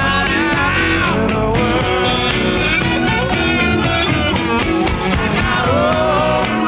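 A live rock band playing an instrumental passage: a lead line bending up and down in pitch over steady bass and drums.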